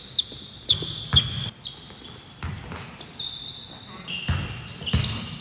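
Basketball thudding on a gym floor a few times, with sneakers squeaking in short high-pitched chirps as players cut and stop.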